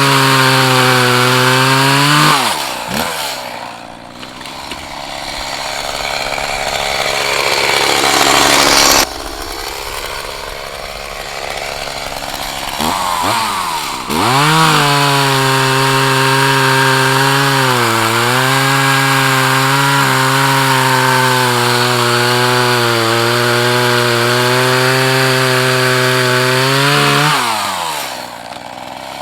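Echo CS-4010 two-stroke chainsaw running at full throttle while bucking wood, revs dropping off twice, at about 2 seconds and near the end, with a noisier stretch in between before it revs back up about 13 seconds in.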